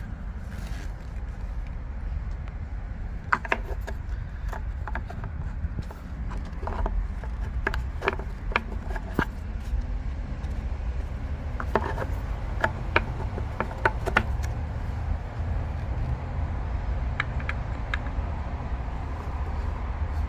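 Scattered light clicks and knocks of tools and screws being worked around a pool pump housing, in sped-up playback, over a steady low hum.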